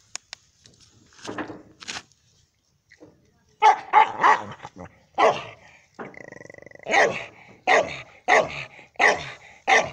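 A dog barking repeatedly at a hedgehog rolled up into a spiny ball, a run of sharp barks starting a few seconds in.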